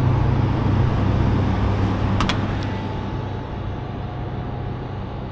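Air conditioner outdoor unit running with its newly installed three-phase scroll compressor, a steady low hum with a short tick about two seconds in. The compressor is running correctly now that its phase rotation has been corrected, with stable pressures.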